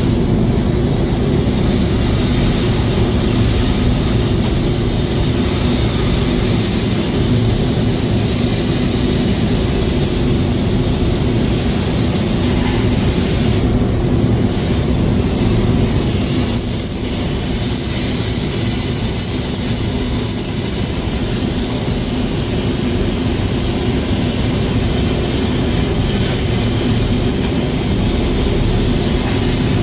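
Steady mechanical drone, like an engine running, with a slight drop in level about sixteen seconds in.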